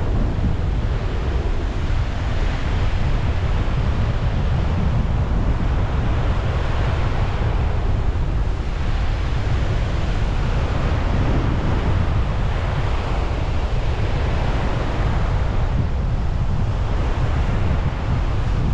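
Strong wind buffeting an action camera's microphone: a steady rushing noise with a heavy low rumble.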